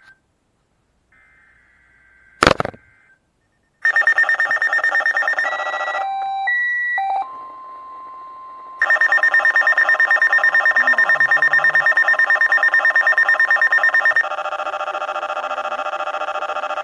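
Weather radios going off in an alert: a sharp click, then electronic alarm tones that switch pitch, a steady single tone near 1 kHz like the 1050 Hz weather-alert tone, and a loud, evenly pulsing alarm beep. About 14 seconds in, the loud beep gives way to a quieter pulsing beep of a different pitch.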